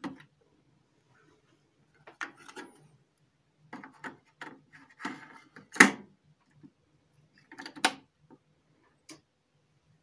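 A cassette being handled in and out of the tape well of an Aiwa R450 cassette deck: scattered plastic clicks and knocks of the cassette and its door. The loudest knock comes about six seconds in and another sharp one near eight seconds.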